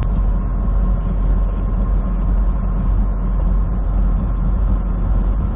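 Semi truck's diesel engine running steadily with road noise while driving, heard as a constant low rumble inside the cab.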